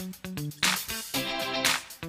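Background music with a plucked, stepping bass line and a sharp hit about once a second.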